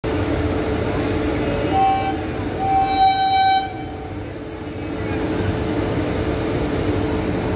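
Indian Railways locomotive sounding its horn as it approaches: a short blast about one and a half seconds in, then a longer, louder blast of about a second, over the steady rumble of the oncoming train.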